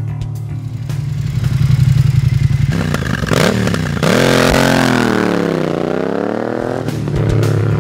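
Triumph Scrambler's parallel-twin engine through a Zard high-mount conical exhaust, revving up with a rising pitch about three seconds in, then the pitch dips and climbs again as the bike pulls away. Background music returns near the end.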